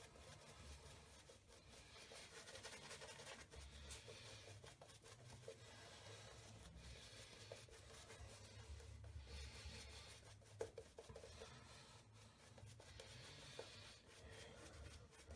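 Faint scratchy swishing of a Zenith Barberpole synthetic-bristle shaving brush rubbing lather onto the face in many small strokes.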